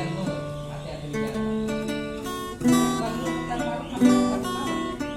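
Acoustic guitar music: chords strummed and notes plucked, with two sharp, louder strums, one a little past halfway and one about a second and a half later.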